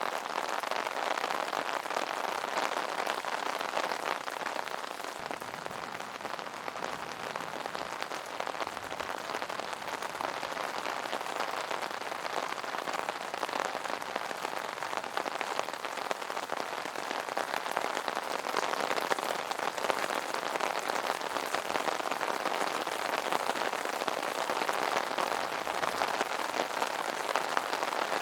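Steady rain falling on an umbrella: a dense, even hiss of countless small drop hits.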